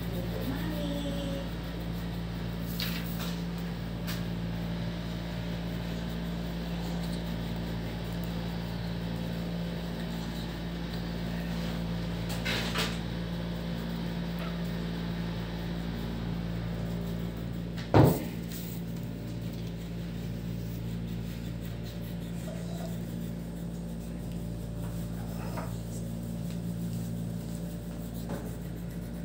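A steady low electrical hum, with a few faint taps and one sharp knock about eighteen seconds in.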